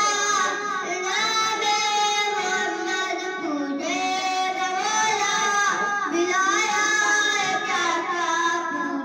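A young boy singing a naat, a devotional Islamic poem, solo and unaccompanied into a microphone, in long held notes with ornamented glides, phrase after phrase.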